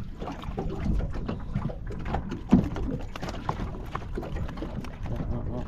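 Fish being handled and landed in a small aluminium boat: scattered small knocks and rattles over a low rumble of wind and water, with one sharp knock about two and a half seconds in.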